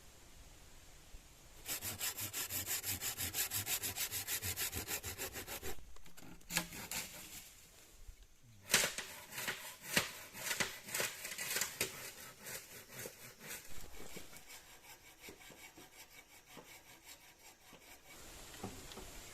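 Hand saw cutting bamboo in quick, even strokes, about four a second. It pauses briefly, then resumes in more uneven strokes that thin out.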